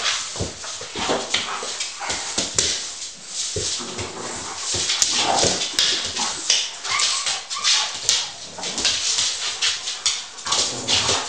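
Two dogs play-fighting: dog play noises mixed with a rapid run of short scuffling sounds of paws and claws on a laminate floor, with a few higher cries about halfway through.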